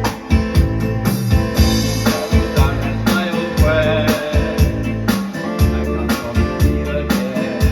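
Music with a steady beat, a deep bass line and keyboard or organ chords.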